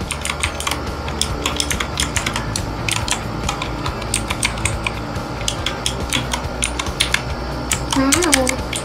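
Rapid, irregular typing on a Redragon K552 Kumara mechanical keyboard with clicky blue switches, many keystrokes in quick succession.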